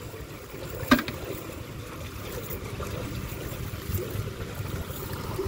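Steady rush of water pouring through a culvert that is releasing floodwater, with one sharp click about a second in.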